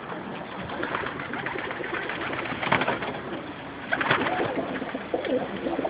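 Domestic pigeons cooing in a loft, several birds calling over one another, with a few short sharp noises about one, three and four seconds in.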